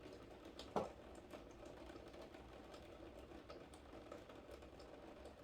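Faint rain patter in the background, scattered with light ticks, and one louder click about a second in.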